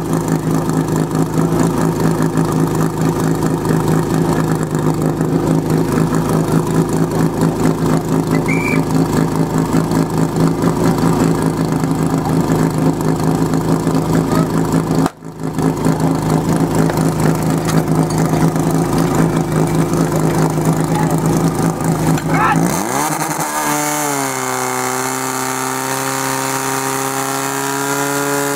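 Portable fire pump engine running at a steady idle, with a brief dropout about halfway through. About 22 seconds in, the engine is throttled up and its pitch climbs steadily as the pump starts delivering water to the hose lines.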